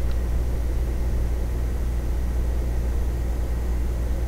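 Steady low hum with an even hiss underneath, unchanging throughout: room background noise, with a faint tick right at the start.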